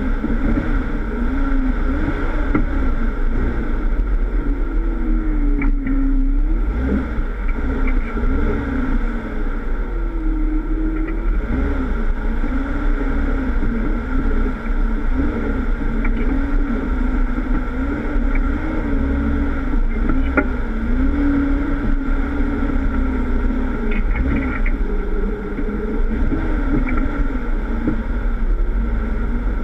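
Jeep Wrangler engine working as the four-wheel-drive crawls an off-road trail, its pitch rising and falling again and again with the throttle over a steady low rumble, with an occasional knock.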